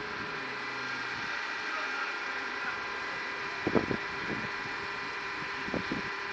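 Concrete block-making machine running with a steady mechanical hum made of several steady tones, briefly louder a few times past the middle.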